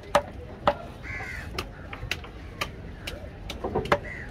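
Heavy knife chopping mahi mahi fillet on a wooden log block in a string of sharp chops. A crow caws about a second in and again near the end.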